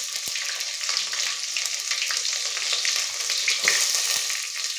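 Sliced onions frying in hot oil in a stainless steel pot, a tempering of cumin, dry red chillies, garlic and curry leaves: a steady crackling sizzle, with a few sharp clicks.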